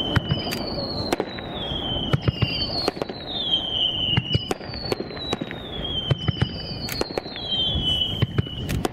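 Fireworks display: a dense run of sharp bangs and crackles from bursting aerial shells. Over them, a high whistle falls in pitch, each one lasting about two seconds and following on about every two seconds.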